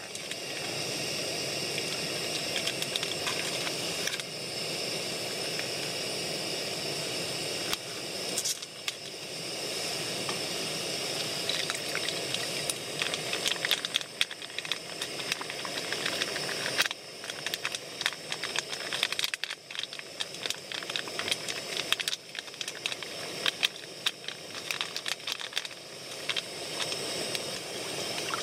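Single-burner gas stove (SOTO ST-301) hissing steadily under a pot of simmering motsu-nabe broth. From about halfway, many small crackles and clicks join it as beef offal is dropped into the broth and stirred with chopsticks.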